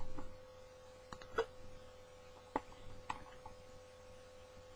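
A faint, steady electrical hum with a handful of short, faint clicks scattered through it.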